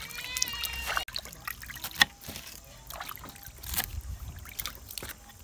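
Water sloshing as hands rub red cabbage in a basin, with a brief high-pitched call in the first second. Then a knife cutting through cabbage leaves onto a wooden chopping board, with a few sharp knocks, the loudest about two seconds in.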